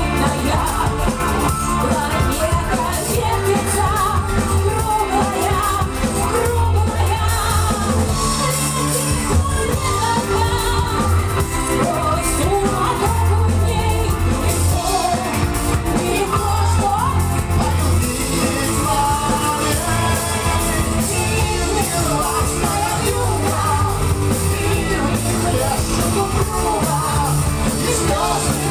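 A live rock band playing a song, with a singer over electric guitar, drums and keyboards and a steady bass line.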